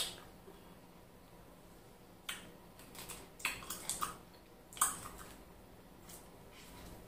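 Close-up eating sounds: short wet mouth smacks and clicks, about half a dozen spaced unevenly, while eating crab legs and semolina in ogbono soup. The sharpest smack comes right at the start, and another just before five seconds in.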